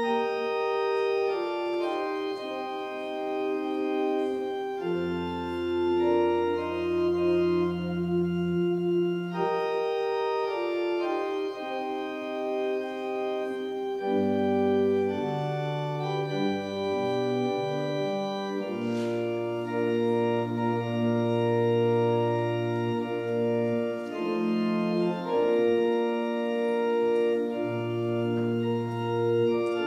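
Organ playing slow, held chords over long low bass notes, the chords changing every few seconds.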